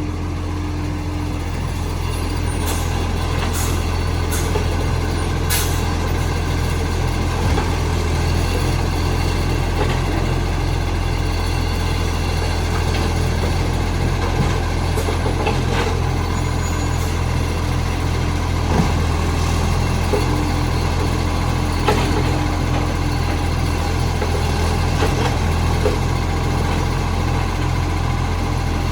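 Recycling garbage truck's engine running steadily for the whole stretch, a continuous low drone with a slight pulsing. The truck has an exhaust leak.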